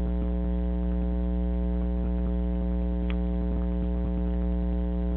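Loud, steady electrical hum with many overtones, unchanging in pitch and level. It carries faint scattered ticks and one sharper click about three seconds in.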